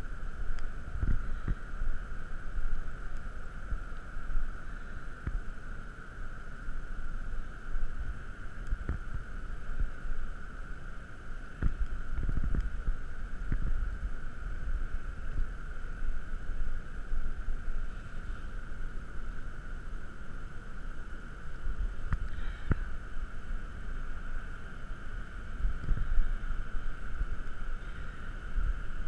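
Low rumble of wind on the microphone, swelling in gusts, over a steady high hum.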